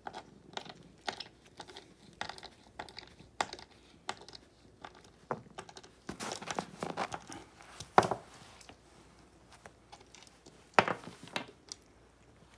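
A cat's claws scratching and scraping on cardboard as it rolls and bats at a toy mouse, with crinkling and soft taps throughout and two louder knocks about eight and eleven seconds in.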